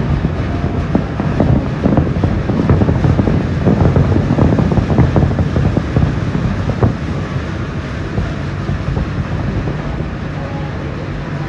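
Fireworks going off in quick succession, a dense run of pops and bangs over heavy wind rumble on the microphone. The bursts thin out after about seven seconds.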